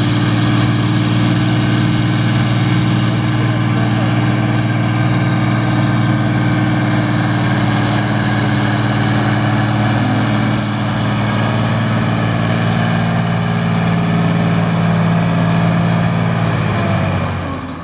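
Ford 7810 tractor's six-cylinder diesel engine running hard at a steady pitch while pulling a weight-transfer sled under heavy load. The sound drops away just before the end.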